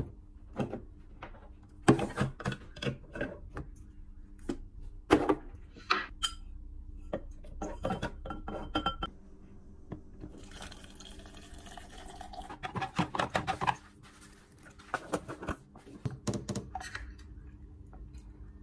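Glass and cup knocks and clinks, then liquid poured from a stainless flask into a clear tumbler, the pour rising in pitch as the tumbler fills, followed by a quick run of spoon-stirring clinks.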